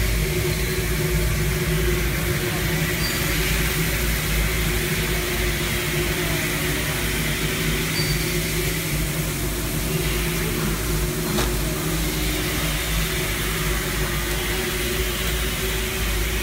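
Gas-heated continuous frying machine running, a steady mechanical hum and whirr from its drive and burner equipment.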